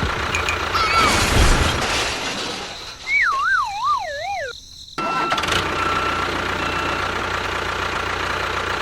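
Steady mechanical running noise of a small machine's motor. About three seconds in it gives way to a wavering, falling whistle-like tone lasting over a second, then cuts out abruptly for half a second before the running noise resumes.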